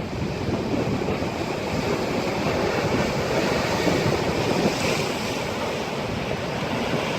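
Ocean surf washing over black lava rocks, a continuous rush of water, with wind buffeting the microphone.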